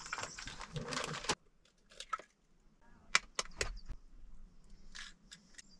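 Plastic flour bag rustling and crinkling as it is handled, stopping abruptly about a second and a half in. Then a few scattered light clicks and knocks of kitchen handling over a plastic bowl.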